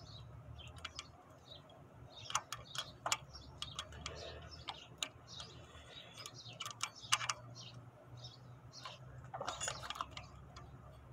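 Scattered light clicks and taps of metal on metal as a roller rocker arm is worked into place by hand on a 3.6 L Pentastar V6's valvetrain.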